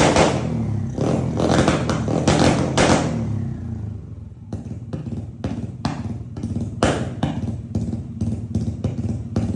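Modified Yamaha Aerox scooter's single-cylinder engine being revved in a few hard throttle blips through an aftermarket exhaust while warming up, then dropping back to a steady idle about four seconds in.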